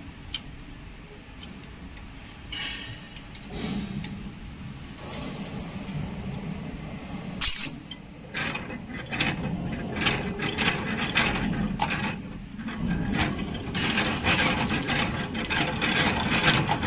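Wire-forming machine being test-run after a cutter replacement: a few scattered clicks, a loud clack about seven and a half seconds in, then a fast, dense mechanical clatter from its feed and tooling.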